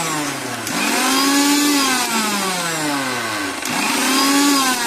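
Electric mixer grinder pulse-chopping coriander, mint and green chillies with a little water to a coarse paste. The motor starts up again about a second in and once more near the end, each run rising quickly in pitch and then slowly falling.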